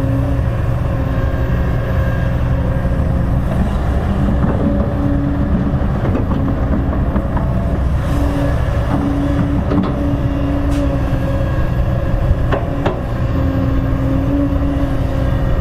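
Kobelco hydraulic excavator's diesel engine running under load as it digs and swings soil, with a droning tone that comes and goes in stretches and a couple of sharp knocks about three-quarters of the way through.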